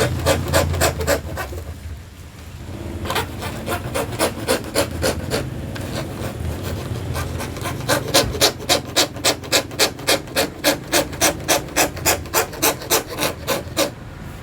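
Hand fret saw cutting through acrylic sheet in quick back-and-forth strokes, about three a second, with a short pause about two seconds in before the sawing picks up again.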